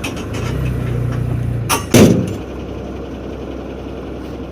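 Delivery truck's engine running and growing louder for about a second and a half, with one sharp, loud bang just before two seconds in; the engine then runs on steadily at a lower level.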